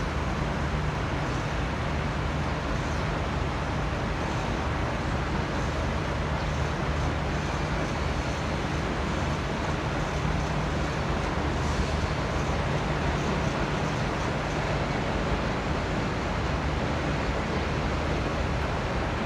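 V/Line N-class diesel-electric locomotive's EMD 12-645 engine idling steadily: a low, even hum with a constant hiss over it.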